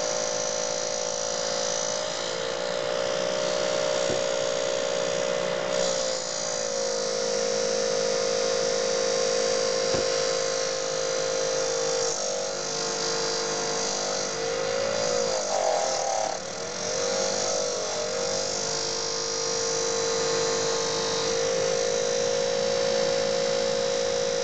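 Corsair H50 liquid-cooler pump head giving off a loud, steady buzzing whine of several tones after three years of silent running, a sign the pump is failing. About halfway through, its pitch wavers and dips while the pump head is pressed by hand, then settles back.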